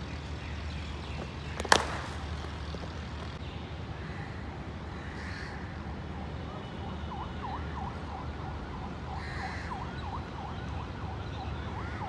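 A single sharp crack of a cricket bat hitting a ball about two seconds in, over a steady low outdoor rumble. From about halfway a run of short repeated chirps, roughly two to three a second.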